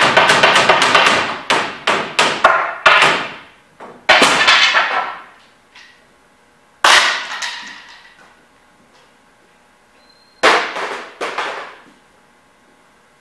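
Loud metallic clanging and clattering: a rapid run of strikes over the first few seconds, then single crashes about four, seven and ten and a half seconds in, each ringing out. These are noises made on purpose as a distraction for a dog holding a down-stay.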